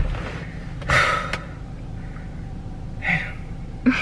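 Breathy exhales from a person, like a short gasping laugh, about a second in and again near the end, over a steady low hum inside a car.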